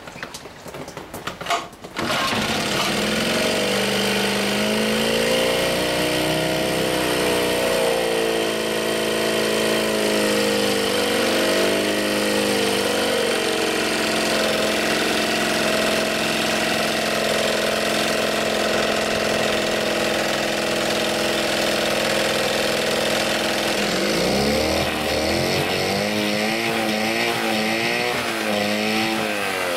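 Small 1963 Johnson 5 1/2 hp two-cylinder two-stroke outboard running. After a short drop about a second in, it is revved up and down, holds a steady speed, and is revved up and down again near the end.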